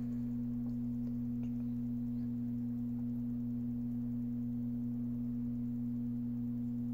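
Steady electrical hum at one low pitch, with a fainter higher overtone above it.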